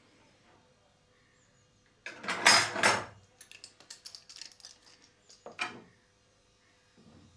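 Wooden boards being handled against a plywood corner clamp jig on a saw table: a scraping knock about two seconds in, then light clicks and a second knock as a metal bar clamp is set on the jig.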